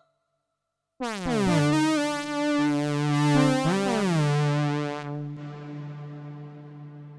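Software analogue-modelled synthesizer (Synapse Audio The Legend) playing a brassy polyphonic patch with glide: after a second of silence a chord swoops down in pitch into place, holds, slides again a little before the middle, then stops and fades out.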